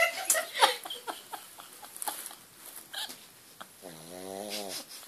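Small dog asleep and snoring: a run of short clicking breaths, then one longer pitched snore about four seconds in.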